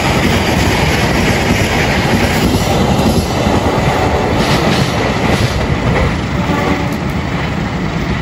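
Argo Wilis passenger train running past on the rails, its carriages' wheels making a steady, dense noise that eases off slightly toward the end as the last carriage moves away.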